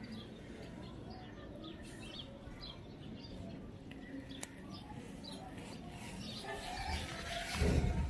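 Birds chirping faintly in the background, with a single sharp click about four seconds in and a brief louder rumble near the end.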